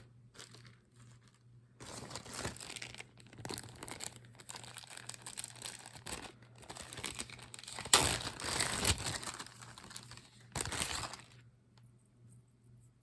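Small plastic jewelry bags crinkling and rustling as pieces are handled and unwrapped, in irregular bursts, loudest about eight seconds in and stopping near the end.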